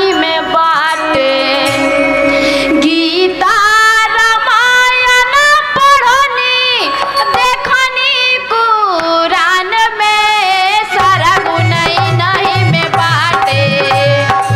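A woman singing a Hindi devotional bhajan in long held notes with sliding ornaments; a hand drum joins in with a steady beat about eleven seconds in.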